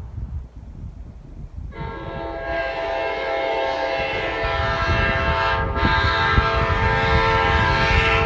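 Nathan Airchime K5LA hybrid five-chime train horn, with bells 1, 2, 3A, 3A and 4A, sounding one long chord. It starts a little under two seconds in and is still blowing at the end. A low rumble of air noise runs underneath.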